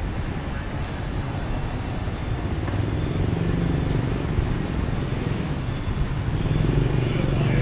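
Street traffic noise, with a vehicle engine hum building over the last few seconds.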